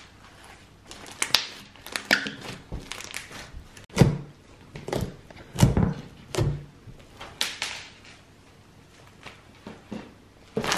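Hands squishing and kneading sticky glitter slime, making a string of short wet pops and squelches, with a few louder dull thuds in the middle as it is pressed against the table.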